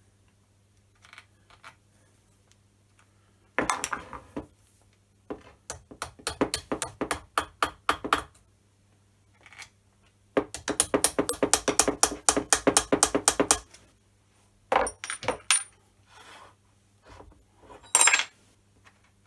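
Hammer tapping on the steel parts of a Myford ML10 lathe tailstock: a few blows, then a run of light taps about four a second, then a faster run of about six a second. Near the end come a few separate metallic clinks and a clunk as the cast-iron tailstock is set down on the lathe bed.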